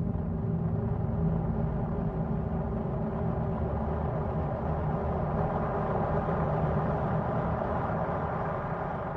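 Dark ambient music: a low rumbling drone built from layered sustained tones, beginning to fade out near the end.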